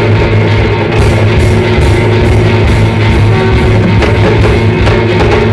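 Loud live rock-fusion band: electric guitars and bass guitar playing over Sri Lankan Kandyan hand drums and drums.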